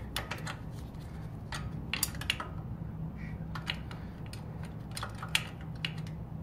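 Irregular light metallic clicks and clinks of a steel spanner working the lock nut of a Tongsheng TSDZ2B mid-drive motor as it is tightened onto the bottom bracket, each click ringing briefly.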